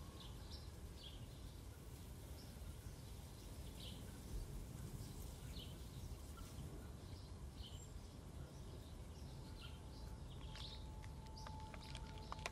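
Quiet winter-woods ambience: a low steady rumble with scattered short bird chirps. Near the end a faint held tone comes in.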